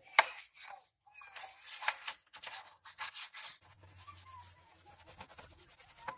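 Small bristle paintbrush scrubbing engine degreaser foam over a plastic engine-bay cover in quick back-and-forth strokes, with a sharp tap just after the start. The scrubbing gets quieter about three and a half seconds in.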